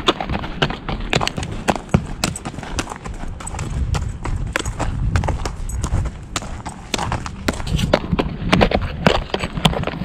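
Hooves of a chestnut Morgan horse walking on a gravel lane as he is led in hand: a steady run of clip-clopping hoof strikes, several to the second.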